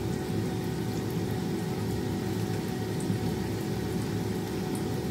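Kachoris shallow-frying in hot oil in a frying pan, a low, steady sizzle and bubbling with a few faint crackles, over a steady hum.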